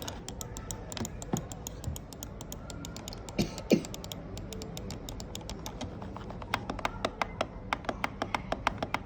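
A run of short, sharp clicks and taps, scattered at first with a couple of louder knocks near the middle, then coming several a second over the last few seconds.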